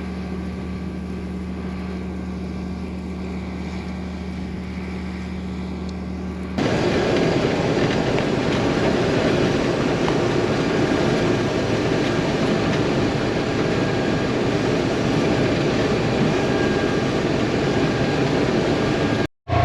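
Combine harvester running during a test cut in wheat: a steady engine drone, then about six and a half seconds in the sound abruptly becomes louder, with a dense rushing noise. The sound cuts out briefly near the end.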